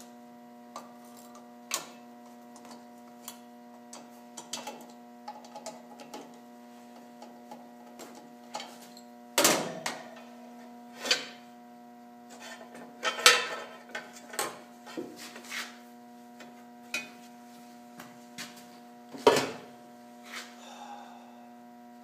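A ratchet and loose metal parts clicking and clinking as the air cleaner housing is unbolted and lifted off a welder/generator's engine, with a few louder clanks, over a steady hum.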